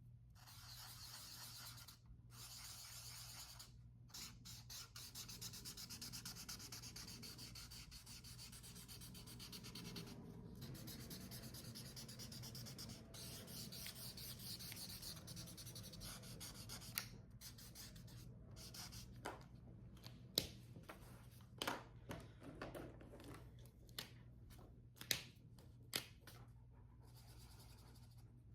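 Colouring-in on sketchbook paper: a drawing tip rubbing rapidly back and forth in fine scratchy strokes, with short pauses. In the second half there are several sharp clicks and taps.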